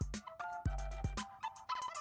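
Background music with a steady beat: deep kick drums, sharp high ticks and short high notes.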